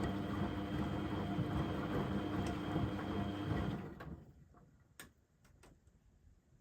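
Beko washing machine running with a steady motor hum and whine, which stops abruptly about four seconds in. A few sharp clicks follow in near quiet.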